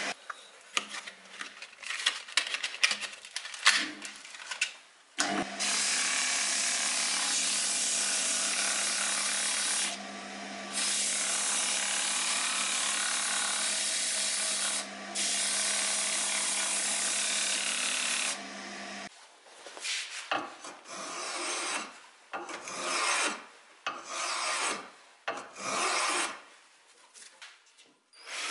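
Wood lathe spinning a wooden spindle while an abrasive sanding pad is held against it: a steady motor hum under a loud rubbing hiss. It starts suddenly about five seconds in, eases twice as the pad lifts off, and stops about nineteen seconds in. Scattered knocks and short rubbing sounds come before and after it.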